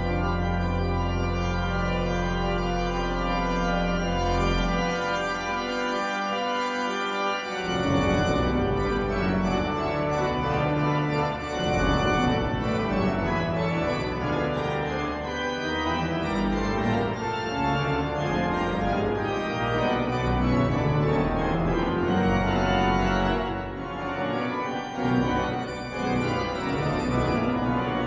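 Pipe organ of Durham Cathedral playing a solo piece: sustained low pedal notes under held chords, then the bass drops out for a few seconds about five seconds in. About eight seconds in a fuller, busier passage of moving notes begins.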